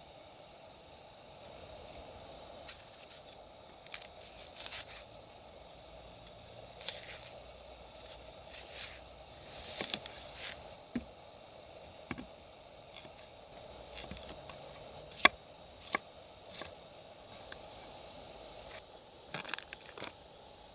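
Scattered scrapes, clicks and soft squishing sounds of food being prepared over a faint steady background, with one sharp click about fifteen seconds in.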